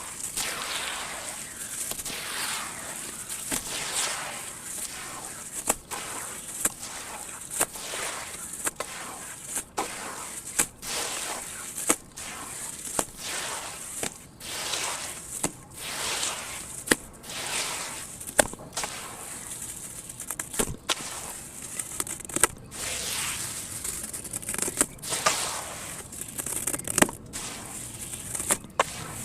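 Dried sand-cement chunks crumbling in water: a continuous run of crackling swells broken by sharp clicks, irregularly, roughly once a second.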